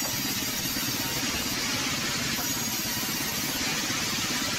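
Large sawmill band saw running steadily with its blade cutting lengthwise through a log of very hard teak.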